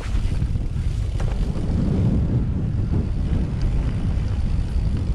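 Mountain bike rolling downhill over rough grass and turf: a steady low rumble of wind buffeting the handlebar camera's microphone mixed with tyre noise, with a few faint rattles.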